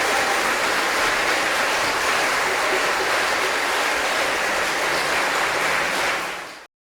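Audience applauding steadily after the music ends, cutting off suddenly near the end.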